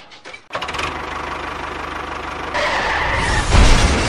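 An engine running with a fast, even pulse. It grows louder about two and a half seconds in, and a heavy low thud comes a second later.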